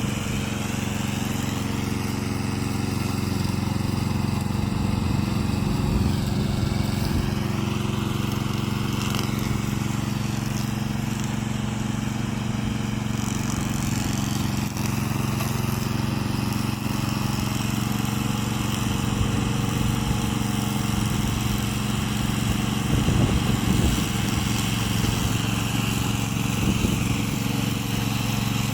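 Petrol engine of a remote-control lawn mower running steadily, with a fainter higher whine that shifts in pitch at times.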